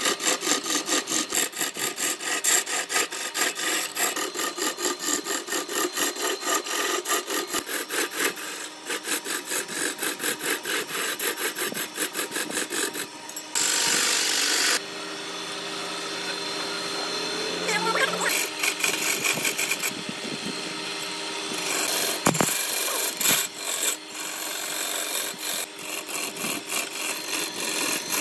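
A turning tool cutting a spinning laminated wood blank on a large wood lathe, the shavings tearing off in a fast, even rhythm of a few beats a second. Midway the cut goes smoother and quieter for several seconds, with a couple of sharp knocks before the rhythmic cutting resumes.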